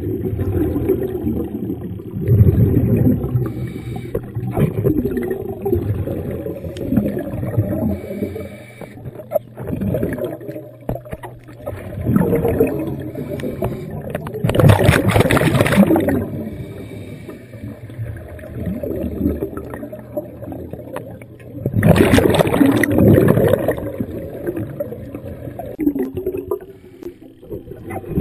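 Scuba breathing heard underwater: exhaled bubbles from a regulator gurgling and rumbling in surges every several seconds, the two loudest rushes about halfway through and about three quarters through.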